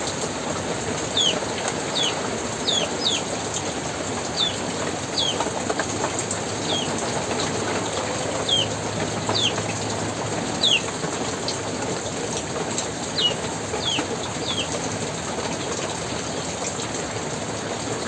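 A small bird chirping over steady rain: short high chirps, each a quick falling note, repeated irregularly about once a second and stopping a few seconds before the end.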